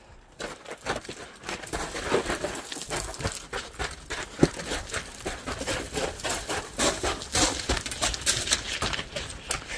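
Footsteps crunching and scraping on loose gravel and rock rubble, an irregular run of steps.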